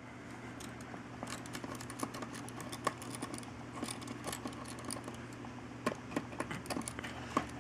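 Small screwdriver backing out the hard-drive retaining screw in a Dell Inspiron 1525 laptop: irregular light clicks and ticks of the bit and screw against the plastic case, over a faint steady low hum.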